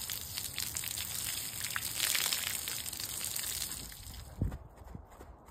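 Garden hose spraying water onto a horse's wet coat: a steady hissing spatter that falls away about four seconds in, followed by a single low thump.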